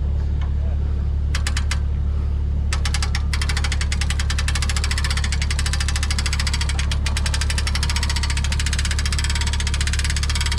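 An engine running steadily with a strong low hum and a fast, even pulse in its note, which grows clearer about three seconds in.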